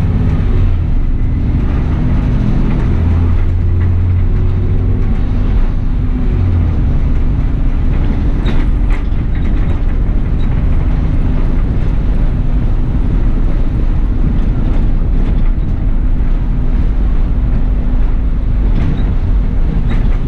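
Bus driving along, heard from the driver's position: a steady, loud low engine hum and road rumble, with a few short rattles or clicks about halfway through and near the end.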